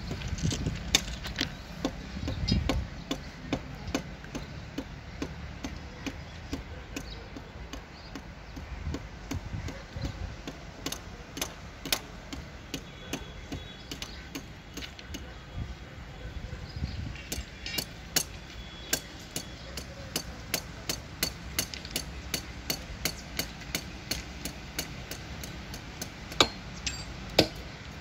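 Hammer tapping on steel: a long string of sharp, evenly spaced strikes, about one to two a second, with a duller heavier knock about two seconds in.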